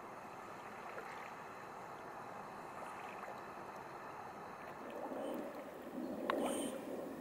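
Kayak paddle strokes: water swishing and trickling off the paddle blades against a steady faint hiss, growing louder with splashing and a few sharp clicks about five to six seconds in.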